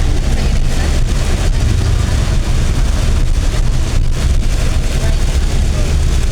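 Steady low rumble of a car being driven, heard from inside the cabin, with an even hiss of rain on the car.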